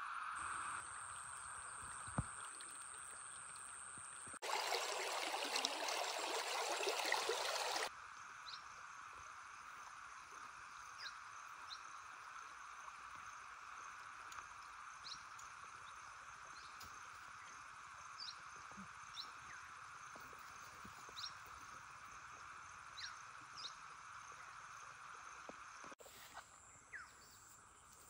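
Flowing river water, a steady rush that turns much louder and fuller for about three and a half seconds early on before dropping back to a softer, even murmur. Faint short chirps come and go over the water sound.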